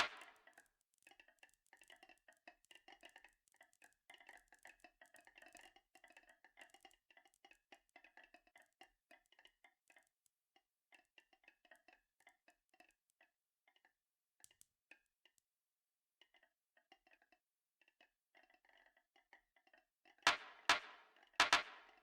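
Marbles rolling and rattling along a marble run track: a faint, rapid clatter of small clicks that thins out midway, then several loud sharp clacks near the end as marbles strike the track.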